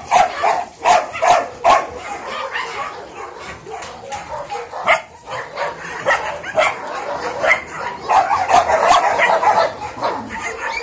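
Caucasian Shepherd puppies yapping and barking in play: a quick series of short, sharp yaps at first, scattered single yaps, then a dense run of yapping about eight seconds in.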